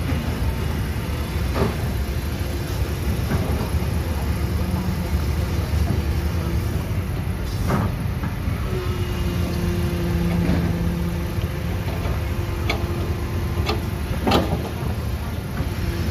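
Heavy diesel machinery running: an excavator and idling dump trucks make a steady low engine rumble. A faint steady whine runs through the middle. A few sharp knocks or clanks break through, the loudest near the end.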